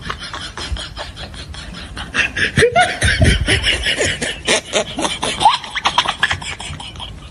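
Laughter in quick, breathy bursts, louder from about two seconds in.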